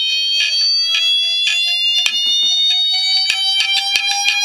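Opened Seagate hard drive's voice coil head actuator driven by an audio amplifier and working as a speaker: a shrill tone slowly rising in pitch, with sharp clicking beats that come thicker near the end.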